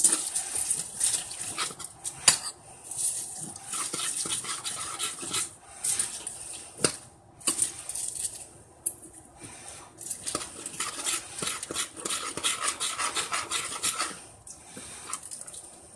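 A metal fork scraping and clinking against a dish while stirring pasta: a steady run of scrapes and taps, with a few short pauses.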